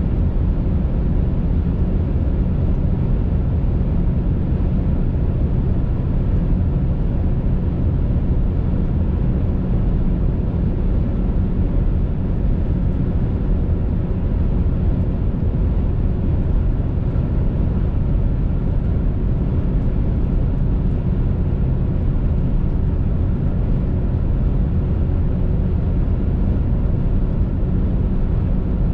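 Steady low rumble of a car driving at highway speed, heard from inside the cabin: tyre and engine noise with a faint steady hum.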